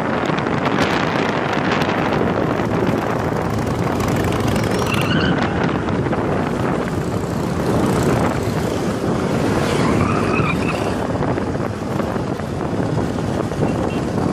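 Motorcycle engines and street traffic running steadily, with wind buffeting the microphone of a camera riding alongside. Brief higher tones rise and fall about five and ten seconds in.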